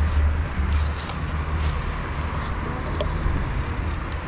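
Steady rush of road traffic and wind on the microphone while riding a bicycle along a wide city street, with a low rumble that eases about a second in.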